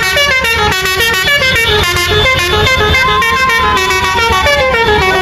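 Multi-tone telolet horn playing a fast run of short stepped notes. About three seconds in, one long note rises and then slides slowly down under the melody.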